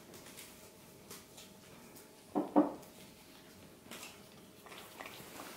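Two quick knocks against a hard placemat on a table, about halfway through, as a small snack is put down on it in front of a puppy. Otherwise a quiet room.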